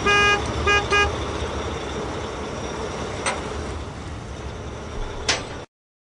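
A vehicle horn toots three times: one longer toot, then two short ones about a second in. A steady low noise runs under it, with a couple of faint clicks, and cuts off suddenly near the end.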